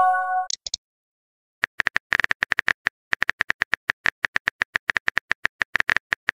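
A short message-notification chime fading out as a new chat message pops up, then, after about a second of silence, a rapid run of keyboard-tap clicks, several a second: a phone keyboard typing sound effect as the next message is typed.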